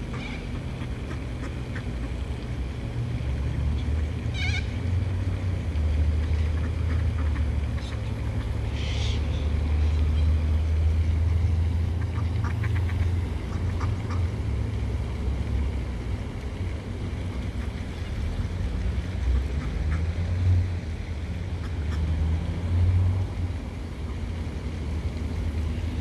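Wind buffeting the microphone, a fluctuating low rumble, with a few short bird calls about four and nine seconds in.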